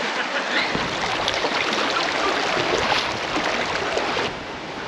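Shallow creek water running, with splashing as bare feet wade through it over the rocks. The sound drops suddenly to a quieter hiss near the end.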